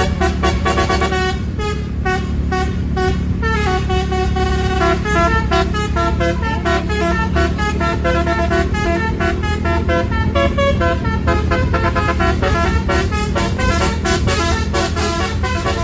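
Bus 'telolet' musical air horn (basuri) playing a tune of quick stepped notes over the steady low hum of the bus's engine. The tune is pleasant, but the horn's trumpets have a slightly odd sound.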